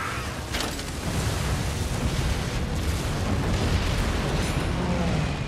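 Film battle sound effects of explosions on a warship: a dense, continuous low rumble of blasts, with a sharp crack about half a second in.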